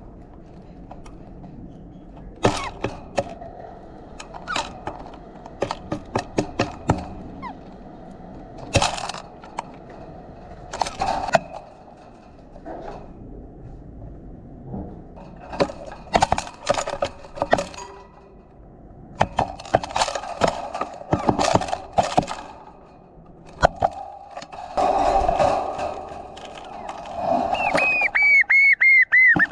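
Birds pecking and cracking seed at a feeder: sharp taps and cracks in irregular clusters, with a rustling stretch about two-thirds through. Near the end a bird calls a quick run of short notes falling in pitch.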